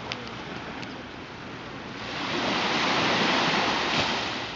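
Small ocean waves breaking and washing up the sand, the hiss of the surf swelling about two seconds in and fading again near the end.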